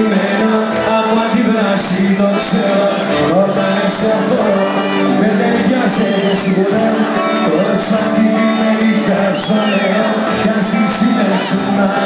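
A live band plays Greek pop loudly over a club PA, with a singer at the microphone. The crowd shouts and whoops over it, and a cymbal ticks regularly through the music.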